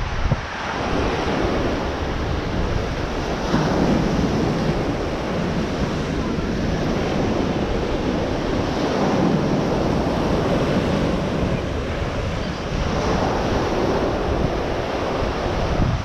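Small surf breaking and washing up on a sandy beach, swelling every few seconds, with wind buffeting the microphone.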